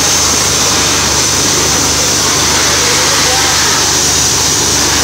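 Pressure washer jet spraying water onto a bicycle, a loud steady hiss over the low hum of the washer's motor running.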